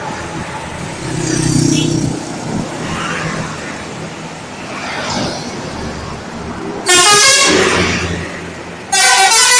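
Bus engines running in traffic, then near the end two loud blasts of a telolet horn, the multi-tone musical air horn of Indonesian tourist buses, about two seconds apart.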